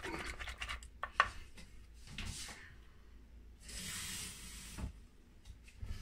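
A plastic pressure-cooker pot is handled on a wooden cutting board: light rubbing and small clicks, with a longer scraping rush about four seconds in.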